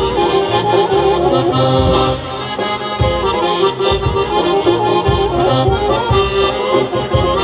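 Amplified piano accordion playing a lively Greek folk dance tune, a quick melody over held chords, with a regular low beat underneath. It is an instrumental break between sung verses.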